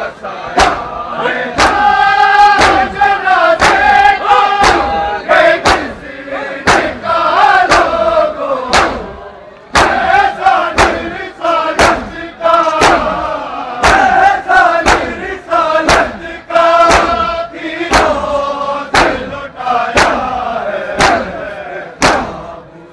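Men's voices chanting a noha together while the crowd beats their chests in unison, sharp hand-on-chest strikes landing about three every two seconds under the held sung lines.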